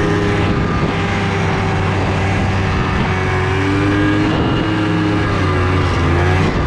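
Snowmobile engine running loud and steady at cruising speed, its pitch drifting only slightly.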